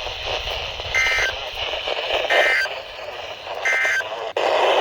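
Three short bursts of NOAA Weather Radio SAME end-of-message data tones, the two-tone digital squawks that close an alert broadcast or weekly test. They come about a second and a half apart over weather-radio static.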